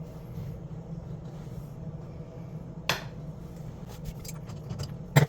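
Hard metal-and-glass clinks from handling tools or parts over a steady low hum: one sharp clink about three seconds in, a few lighter ticks after it, and a loud knock just before the end.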